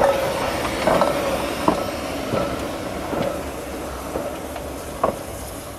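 Peckett steam tank locomotive rolling slowly along the track, with a steady hiss of steam and occasional clanks from the running gear, growing fainter toward the end.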